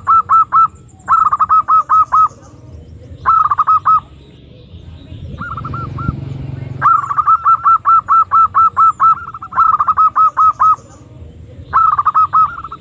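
Female zebra dove (perkutut) calling, the kind of call used to lure wild doves: quick runs of short, clipped coo notes, each falling slightly, about six a second, in bursts of one to two seconds with short gaps. The longest run starts about seven seconds in.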